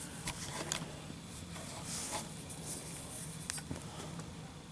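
Faint handling noise: a few light clicks and rustles over a low steady hum, as a lighter and a drop target are picked up and set in place.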